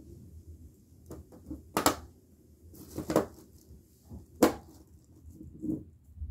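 Handling noise: three sharp clicks or knocks a little over a second apart, a softer knock near the end, and faint rustling between.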